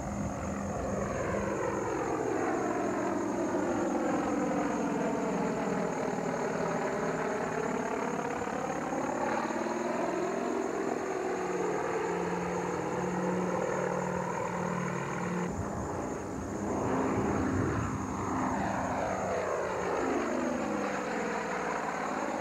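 Aircraft engines during a slow, low pass with gear down and flaps extended. The steady engine hum takes on a whooshing tone that sweeps down and back up as the plane goes by, then again near the end.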